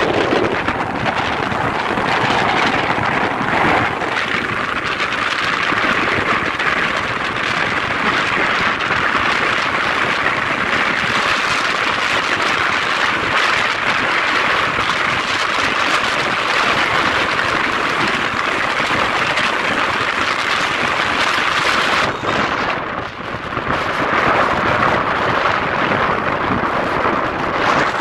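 Steady wind rush over a helmet-mounted microphone on a moving motorcycle at road speed, an even hiss that dips briefly about 23 seconds in.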